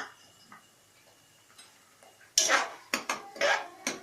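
A spoon clinks once against a pan. After about two seconds it starts scraping and stirring through frying onions and chopped chilies, in quick repeated strokes about three a second.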